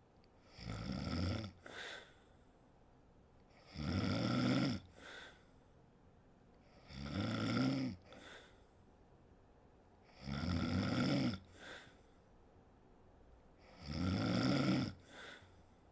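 A sleeping woman snoring, five snores about every three and a half seconds, each a low buzzing rattle followed by a short, fainter breath.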